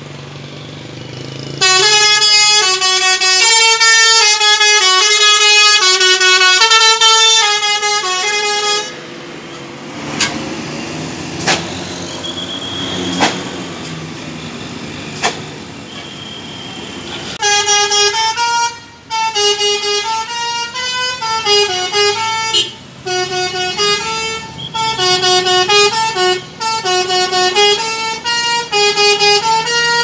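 Basuri telolet horn on a tour bus playing a melody of short stepping notes for about seven seconds, then, after a break of about eight seconds with a few sharp clicks, a second long run of the horn tune to the end.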